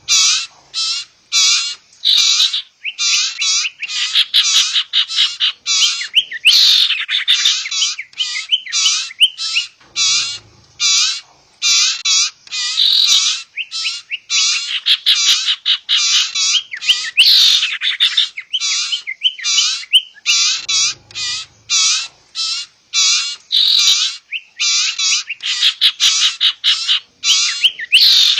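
Bird-lure recording of sirtu birds, adult calls combined with the begging calls of young birds: a continuous, busy chatter of short, sharp calls, several per second, with brief pauses. Such recordings are played to attract wild sirtu.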